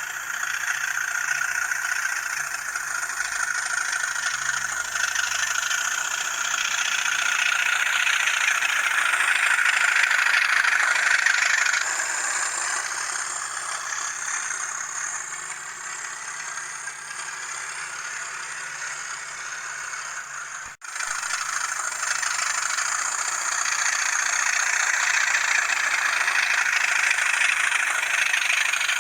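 Hornby TTS sound decoder in an N gauge Class 37 model playing its English Electric diesel engine sound through the loco's small speaker as it runs. The engine note rises to its loudest about eleven seconds in, drops back, then builds again; the sound cuts out for an instant about twenty-one seconds in.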